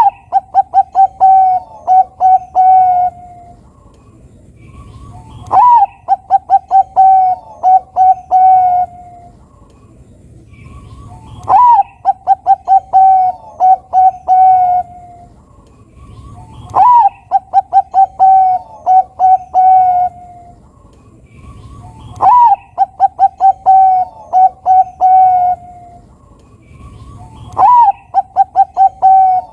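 Bangkok-type zebra dove (perkutut) singing its cooing song: six phrases, about one every five and a half seconds. Each phrase opens with a swooping note, runs into a quick series of short notes and ends in a few longer, lower coos.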